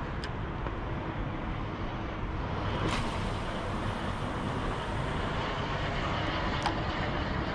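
Steady low outdoor rumble like distant traffic, with a fishing cast from a spinning rod: a brief hiss about three seconds in, then a light click near the end.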